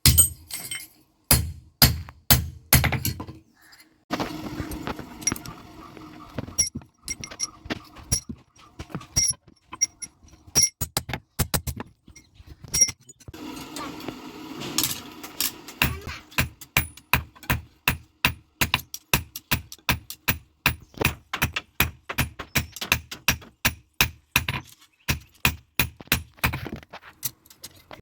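Blacksmith's hammer striking iron on an anvil, blow after blow, settling into a steady run of about three strikes a second in the second half, some blows leaving a ringing tone. A low steady hum sits under the pauses between runs of blows.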